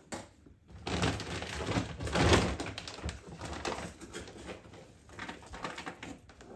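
A cat vocalizing to ask for food, mixed with clicking and rustling noises; the loudest stretch is about two seconds in.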